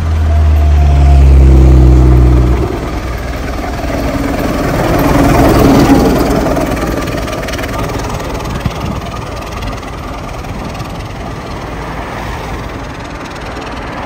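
Steam traction engine on steel wheels passing by on a tarmac road, its rumble swelling to a peak about six seconds in and then fading as it moves away. Before that, for the first two or three seconds, a motor vehicle's engine hums low and steady as it passes close.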